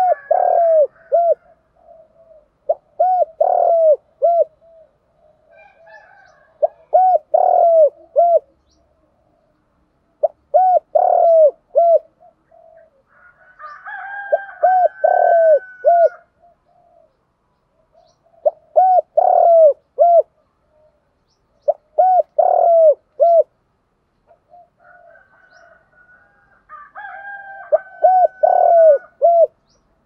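Spotted dove cooing: about eight short phrases of three or four coos each, repeated every three to four seconds. These are calling and challenge coos of the kind used as a decoy to draw wild spotted doves.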